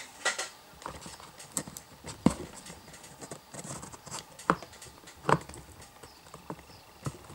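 Scattered light clicks and knocks from handling video cables and plugs on an LCD driver board, irregularly spaced, the loudest about two and five seconds in.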